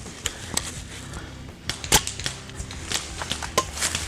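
Mag-fed paintball marker being reloaded: a series of sharp plastic and metal clicks and knocks as a 20-round magazine is swapped, the loudest about two seconds in.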